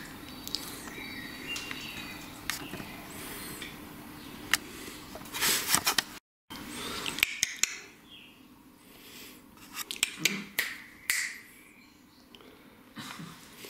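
Light clinks of cutlery and dishes at a table as someone eats, in scattered sharp clicks. About six seconds in the sound drops out for a moment, and a quieter stretch with a few more clicks follows.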